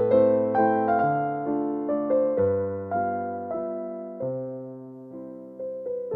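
Background piano music: a gentle melody of struck notes over chords, each note fading after it is played, thinning out and growing quieter about four to five seconds in before picking up again near the end.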